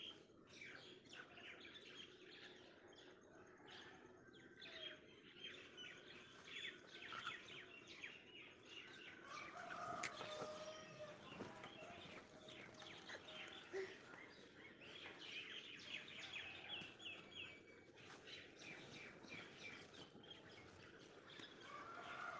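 Faint chirping of several small birds, with short calls repeated throughout.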